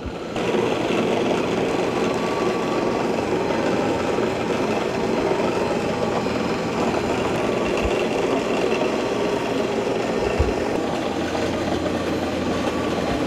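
Shark Matrix robot vacuum running on carpet during its back-and-forth cleaning pass: a steady drone of suction motor and brush roll. Two brief low thumps come about eight and ten seconds in.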